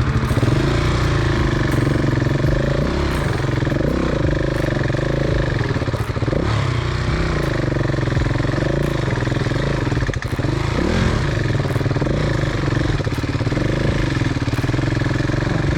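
KTM 690's single-cylinder engine running continuously at low speed, its revs rising and falling over and over.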